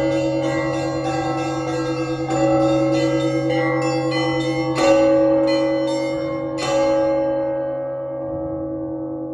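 Orthodox church bells ringing a peal (zvon): small bells struck in quick succession over the steady tones of larger bells. Two heavy strikes come about five and seven seconds in, then the bells ring out and fade.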